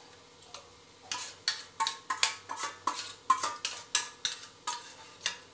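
Wire balloon whisk beating curd and gram-flour batter in a stainless steel bowl, the wires clinking against the bowl in quick repeated strokes, about three or four a second, starting about a second in.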